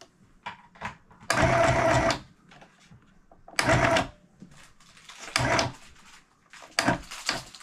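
Small electric household sewing machine stitching in four short runs, the first about a second long and the later ones shorter, with quiet pauses between.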